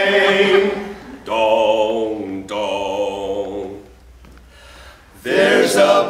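Male barbershop quartet singing a cappella in close four-part harmony, holding sustained chords that imitate ringing church bells. The chords break off briefly about a second in and again at two and a half seconds. The singing drops away around four seconds in, then the quartet comes back in with the next line near the end.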